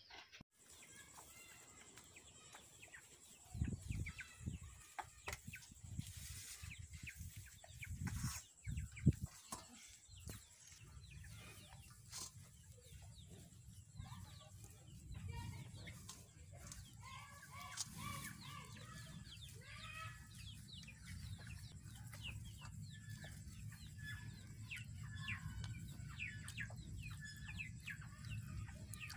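Chickens clucking repeatedly, with a few dull knocks in the first ten seconds and a steady low rumble from about a third of the way in.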